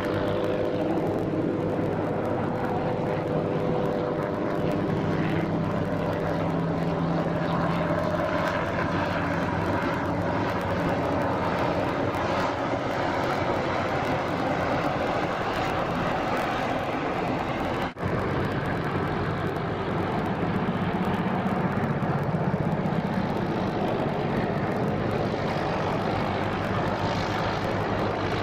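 Military Black Hawk helicopters flying low, a steady rotor and engine drone with no let-up. The sound drops out for an instant about two-thirds of the way through, then carries on.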